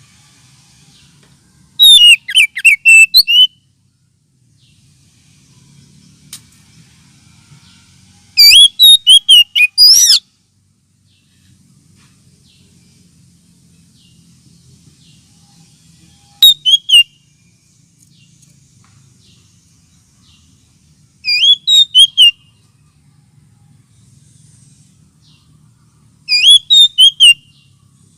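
Oriental magpie-robin (kacer) song played as a lure call: five loud bursts of rapid whistled notes, each lasting about a second and coming several seconds apart, with faint twittering between.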